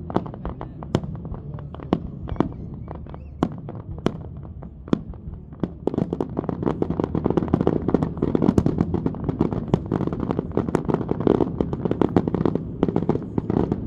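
Aerial fireworks going off in a string of sharp bangs and pops. About six seconds in, they thicken into a loud, rapid barrage of overlapping bangs and crackles.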